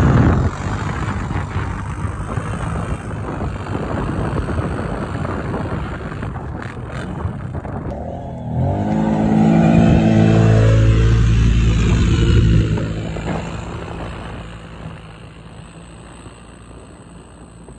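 ATV engine running hard as the quad churns through deep snow. About eight and a half seconds in the revs climb sharply and stay loud for a few seconds, then the engine fades as the machine pulls away.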